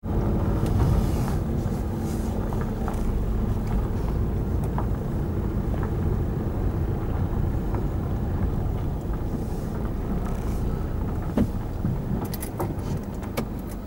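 A car running and rolling along a lane: steady low engine and tyre rumble, with a few sharp clicks near the end.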